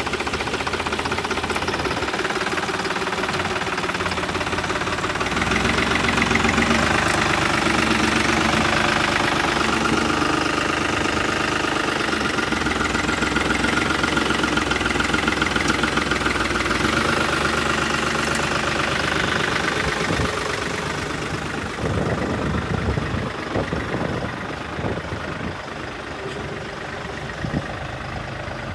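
New Holland 7510 tractor's diesel engine running close by. It is revved higher from about five seconds in and eases back about twenty seconds in, with a few short knocks near the end as the tractor moves off.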